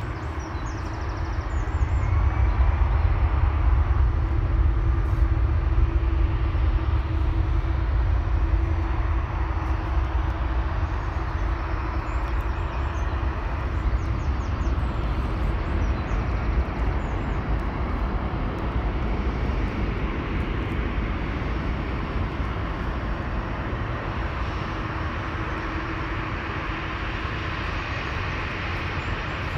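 Jet airliner engines rumbling as the aircraft passes. The deep rumble swells over the first couple of seconds, then slowly fades away.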